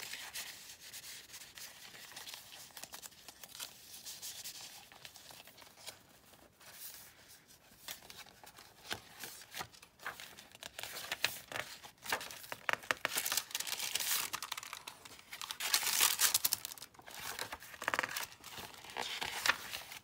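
Paper pages and inserts of a handmade junk journal rustling and flapping as they are leafed through and handled: many short, crisp crinkles and page flips, busier and louder in the second half.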